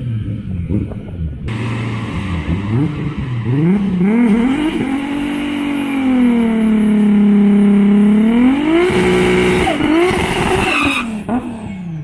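Toyota Supra doing a burnout. The engine is blipped, then from about a second and a half in the tyres spin with a steady screech while the revs climb and are held high. The revs drop off about eleven seconds in.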